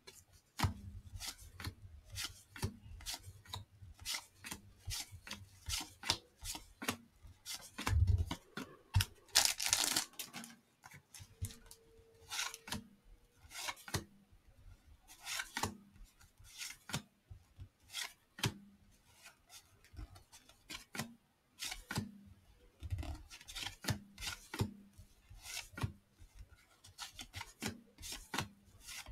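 Stack of 1989 Fleer cardboard baseball cards being thumbed through one card at a time, the cards sliding and flicking against one another: a run of soft, irregular swishes and clicks, with a few louder ones about eight to ten seconds in.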